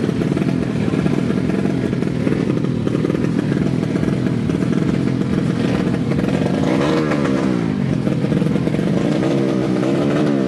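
Four-stroke 130cc underbone drag bike engine running loudly at the start line, held on the throttle, with the revs swinging down and back up a couple of times in the second half.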